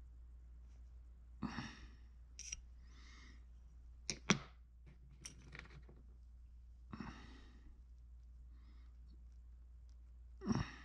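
A man breathing out audibly through the nose several times, short breathy sighs as he concentrates on close, fiddly work. About four seconds in come two sharp clicks, the loudest sounds, with a few fainter ticks around them, over a steady low hum.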